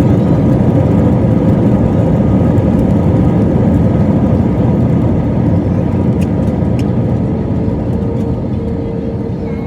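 Jet airliner cabin noise during the landing roll: a loud, steady rush of engine and air noise that slowly dies down. A steady whine comes in near the end.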